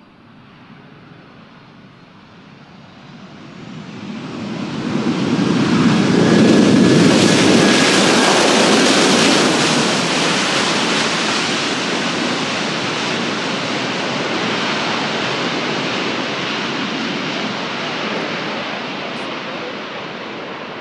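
Embraer KC-390's twin IAE V2500 turbofan jet engines passing close: a loud, even jet noise that builds up over the first six seconds and then holds steady, with a faint whine dropping slightly in pitch near the peak. It cuts off suddenly at the end.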